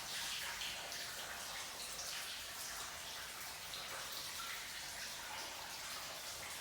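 Water trickling and dripping inside a cave, a steady hiss with small drips.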